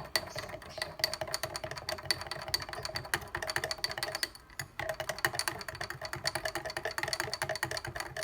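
A spoon stirring hot water and matcha latte powder in a glass: rapid clinks against the glass, each with a short ring, pausing briefly about halfway through.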